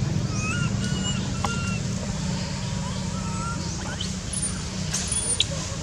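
Steady low rumble of motor traffic, with short high whistled calls over it: several in the first two seconds and a few very high, thin ones near the end.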